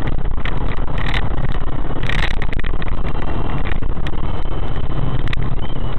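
Steady, loud rumble of a moving vehicle's engine and road noise, with a few brief knocks.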